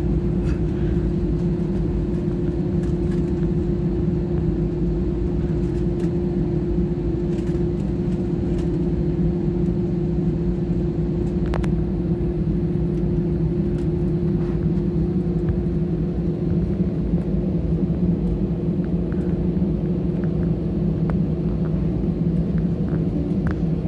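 Airliner's jet engines at taxi power, heard inside the cabin: a steady low drone with an unchanging hum, the engines not yet spooled up for the take-off roll.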